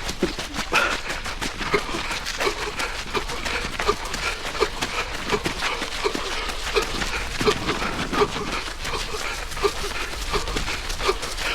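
A runner breathing hard and wheezing as he runs, one loud breath sound about every three-quarters of a second, with his footfalls in between.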